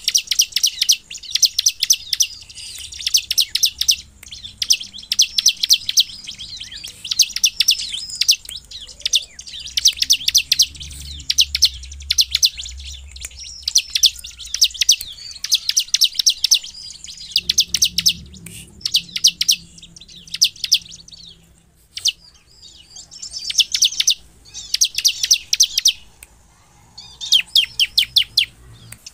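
Bar-winged prinia (ciblek) giving its excited, rapid-fire 'nembak' call: repeated bursts of fast, sharp, high notes, each burst about a second long, separated by short pauses, with a couple of longer pauses in the second half.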